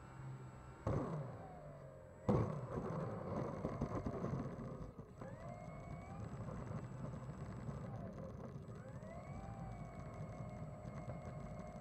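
Small brushless electric motor and propeller of an E-flite Clipped Wing Cub model plane whining, its pitch falling and rising several times as the throttle changes, then holding steady near the end. Two sharp knocks come in the first few seconds.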